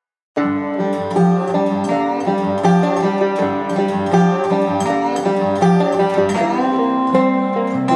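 Background music, starting abruptly a moment in after a brief silence.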